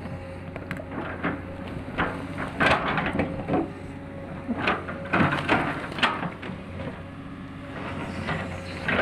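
Excavator at work: a steady engine hum with irregular clanks, knocks and scrapes of the machine and its bucket.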